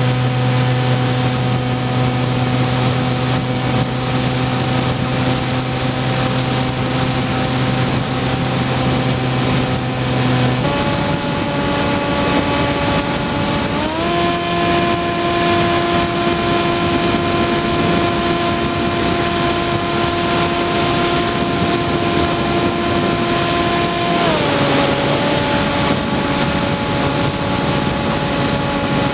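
Skywalker RC plane's electric motor and propeller whining steadily over rushing air, picked up on board. The pitch steps down about ten seconds in, rises again about fourteen seconds in and drops near the end as the throttle changes.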